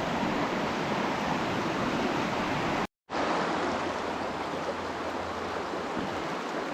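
Steady rushing of a river's flowing water, cutting out for an instant about three seconds in.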